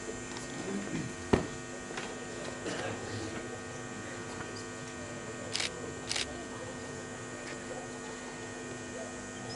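Steady electrical mains hum from the public-address system, with a single sharp knock about a second in and two brief hisses near the middle.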